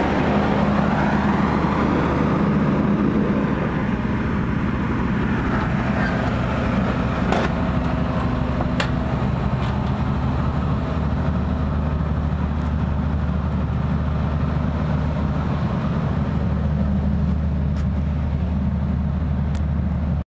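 AIFO GEC 500/2 500 kVA diesel generator set running steadily, a constant low drone. A few light clicks sound around seven and nine seconds in.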